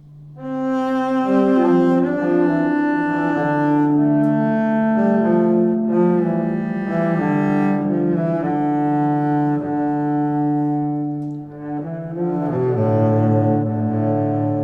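Background music on bowed strings, slow held notes in several parts moving from chord to chord, with a brief dip shortly before the end.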